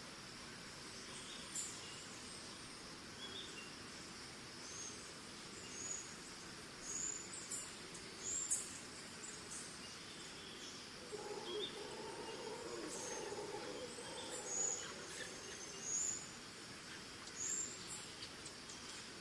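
Tropical forest ambience: crickets holding a steady high drone, with short high bird chirps scattered throughout. A little past the middle, distant monkeys call low for a few seconds.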